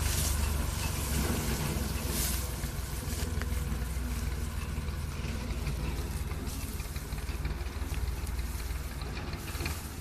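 Tractor engine running steadily as it drives a front-mounted wheat reaper through the crop, its low hum slowly fading as the machine moves away.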